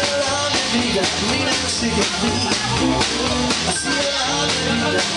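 Live jump-blues band playing: electric guitar lead with bending notes over a drum kit.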